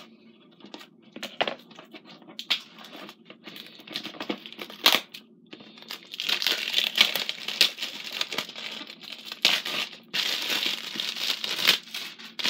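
Plastic shrink wrap on a sealed VHS tape being torn open and peeled off, crinkling and crackling. There are scattered sharp crackles, then two dense stretches of crinkling, from about six to eight seconds in and from about ten to twelve seconds in.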